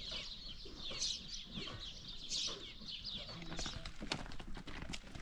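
Birds chirping in short falling calls. About four seconds in, this gives way to a rapid scatter of hoof and foot steps crunching on a stony path as loaded donkeys walk.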